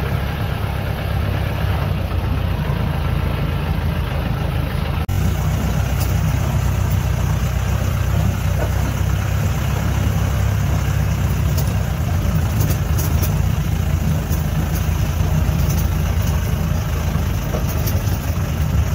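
Off-road jeep's engine running steadily at low speed, heard from inside the cabin, with scattered clicks and rattles as it drives over a rough dirt track.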